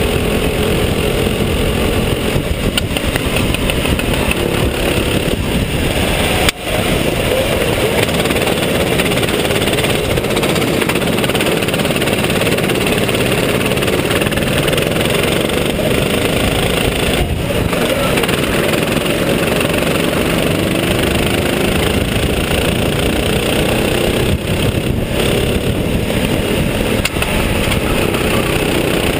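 Kart engine running hard on track, heard on board, its revs rising and falling through the corners, with a brief dip about six and a half seconds in.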